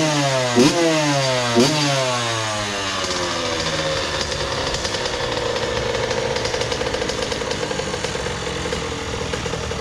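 Honda CR80's two-stroke single-cylinder engine blipped three times in quick succession in the first two seconds, then revs falling back and settling into a steady low idle, freshly set, with no shaking the owner can hear.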